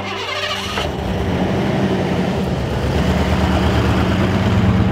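An old pickup truck's engine running, a low steady hum that grows gradually louder.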